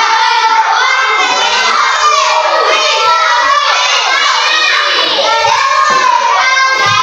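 A classroom of young children shouting and chattering all at once, many high voices overlapping without a break.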